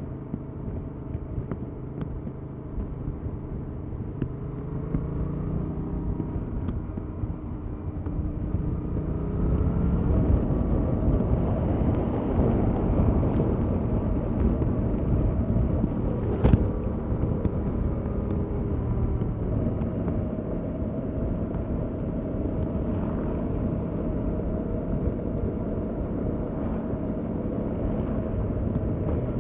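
Stock-exhaust 2021 Yamaha MT-07's 689 cc parallel-twin engine running under way, its pitch climbing and dropping with the revs. It gets louder from about ten seconds in, with a single sharp click about sixteen seconds in.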